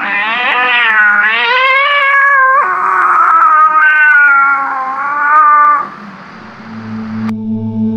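Ghostly wail sound effect: a loud, high, wavering cry in two long stretches, the first warbling up and down several times, the second steadier, breaking off about six seconds in. A low drone comes in near the end.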